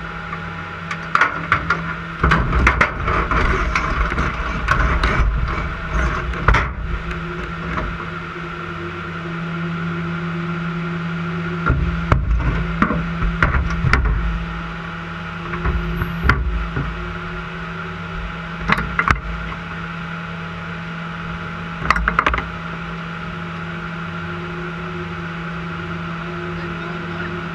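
A steady, unchanging engine hum with many irregular sharp knocks and clunks over it, thickest in the first few seconds and in short clusters later on.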